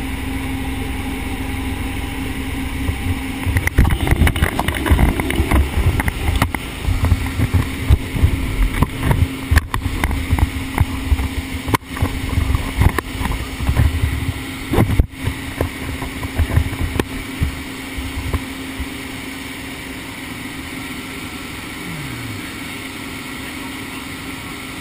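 Single-engine piston plane's engine and propeller droning steadily in the cabin, with no change in pitch. From about three seconds in until near the end, irregular rumbling and a few sharp knocks of the camera being handled ride over it.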